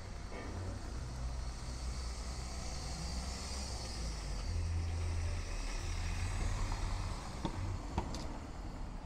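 Street traffic: a car passing by, its engine and tyre noise swelling through the middle and then easing, over a steady low rumble, with a couple of faint clicks near the end.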